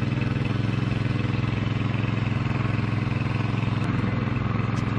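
A motor running steadily at an even speed, a constant low hum that does not change.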